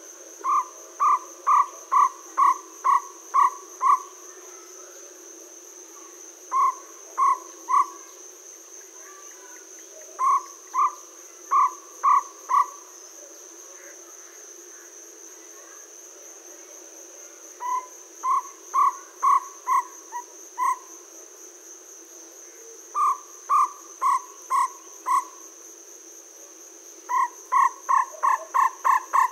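Jungle owlet calling: bouts of three to seven short, evenly spaced notes, about two a second, with pauses of a few seconds between bouts and a longer, faster run starting near the end. A cricket chirps steadily at a high pitch throughout.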